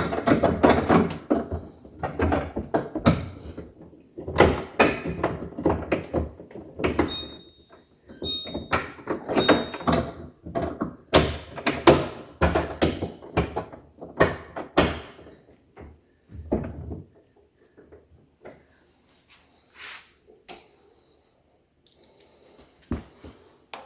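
Handling noise inside a refrigerator's freezer compartment: plastic knocks, clicks and clatter as a screw is driven into the drawer glide bar and parts are moved about, with a few short high squeaks partway through. The clatter thins out to occasional light knocks after about fifteen seconds.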